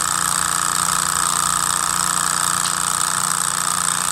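Small walking-beam Stirling (hot-air) engine running steadily at speed on a spirit-burner flame.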